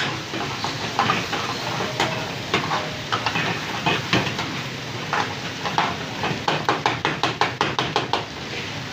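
Metal ladle stirring and scraping food in a hot pan over steady sizzling, with a fast run of metal clinks late on.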